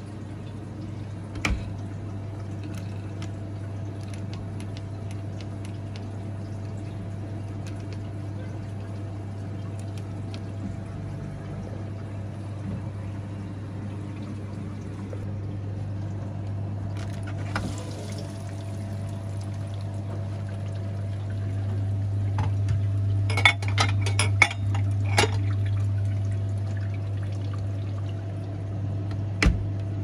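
Beko dishwasher at the start of its wash cycle: a steady low hum with water running and filling inside. The hum grows a little louder about two-thirds of the way through, with a quick cluster of clicks and knocks, and there is one more click near the end.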